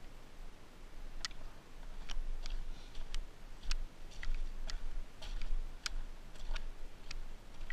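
Footsteps on wet gravel and mud, heard through a helmet-mounted camera's housing as a run of sharp clicks about two a second, over a low rumble.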